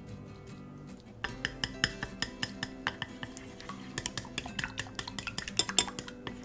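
Wooden chopsticks beating eggs in a glass bowl: rapid clicking and tapping against the glass that starts about a second in and keeps up in a quick, uneven rhythm.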